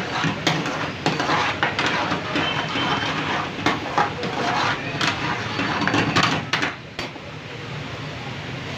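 Metal utensils clattering against pots and dishes in a rapid run of clinks and scrapes. The clatter stops about seven seconds in, leaving a steady background noise.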